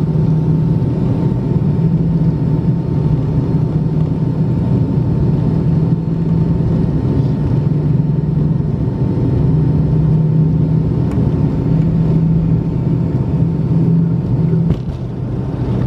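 Cabin noise of an MD-80 on its takeoff roll: the rear-mounted Pratt & Whitney JT8D turbofans at takeoff power give a steady loud rumble with a low drone and a thin high tone. Near the end the deepest part of the drone drops away, around when the wheels leave the runway.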